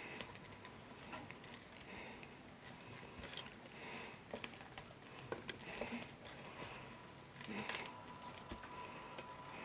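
Faint handling sounds of rolled-newspaper tubes rustling, with scattered small clicks of scissors as a tube end is pushed into the woven work.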